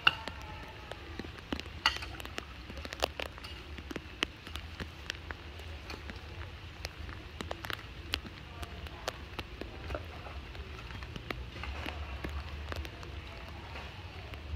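A long-handled hoe scraping and knocking in wet mud and debris at a drain grate: irregular clicks and scrapes, a few sharper knocks, over a steady low rumble.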